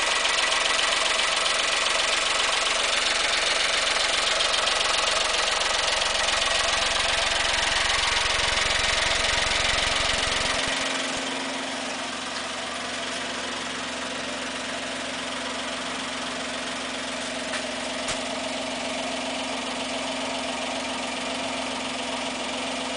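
Toyota Roomy Custom G-T's 1KR three-cylinder engine running at idle. About ten seconds in, the deep rumble stops abruptly and a quieter, steady hum remains.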